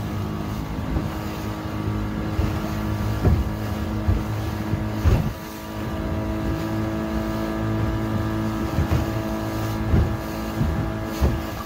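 Boat engine running steadily, with irregular knocks and thumps over it.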